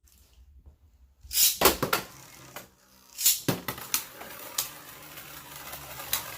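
Beyblade Burst tops (Orb Engaard and Crash Roktavor) clashing in a plastic stadium: a string of sharp clacks. Several come close together about a second in, then single hits follow every second or so.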